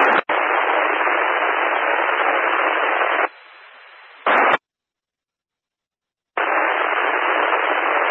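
Loud, even FM radio hiss with no voice on the 146.84 MHz two-metre amateur repeater channel, the sound of the receiver's squelch open on a keyed but silent or weak transmission. It breaks off a little past three seconds in, comes back as a short burst, drops to dead silence for about two seconds, then returns.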